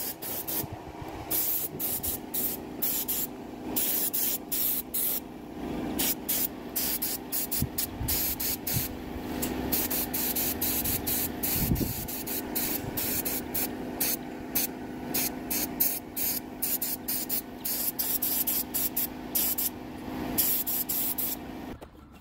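Etch primer being sprayed onto galvanised steel fence panels in many short spray bursts, one after another, stopping shortly before the end.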